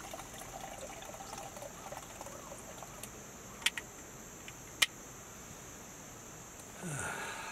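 Liquid poured from a flask into a stainless-steel tumbler, a faint trickle, followed by two sharp clicks about a second apart midway.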